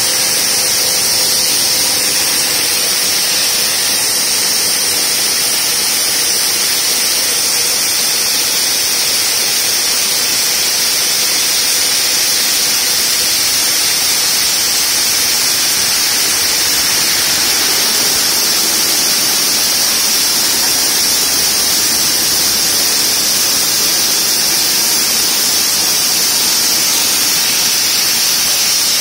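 Multiblade block cutter's large circular saw blade cutting through a stone block under its cooling water spray: a loud, steady hiss with a high-pitched edge.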